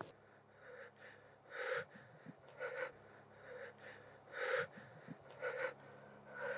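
A man breathing hard and fast through his mouth, in short audible gasps about once a second, over a faint steady low hum.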